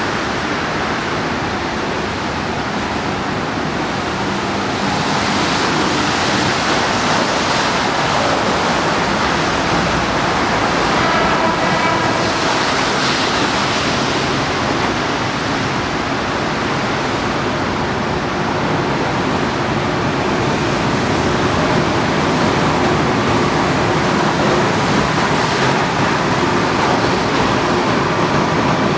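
Steady rushing rumble of an approaching Hawker Siddeley H6 subway train, growing slightly louder, with a faint steady whine coming in about halfway through.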